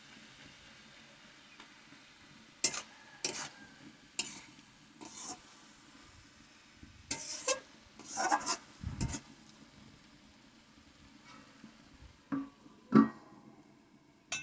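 A metal spatula scraping and stirring cabbage curry in an aluminium kadai, in scattered short strokes, then a steel plate set on the pan as a lid with a clank near the end.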